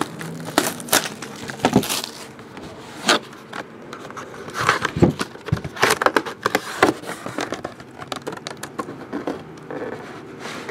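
Plastic packaging crinkling and rustling as a pack of 8x10 photographs is handled and opened: an irregular run of crackles, rustles and sharp taps.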